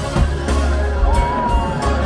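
Drum and bugle corps playing live: full brass chords over heavy bass and drum hits, with front-ensemble keyboard percussion. About halfway through, a single high note slides up and is held, sagging slightly.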